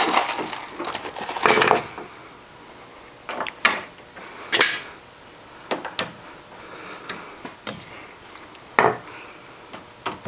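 Screws and hand tools being handled while a screw is hand-tightened with a screwdriver: scattered light clicks and small metallic knocks, a few sharper ones, over a quiet background.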